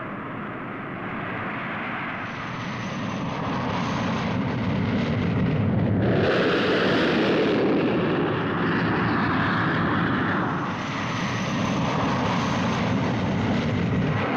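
Jet aircraft in flight: a steady rushing jet-engine noise that grows louder over the first six seconds, dips briefly a little before the end, then holds steady.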